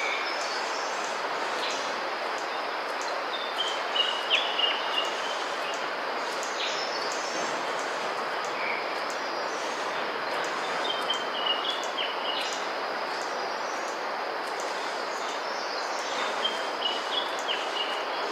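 A bird of paradise calling in three runs of short, high notes about six seconds apart, over a steady background hiss.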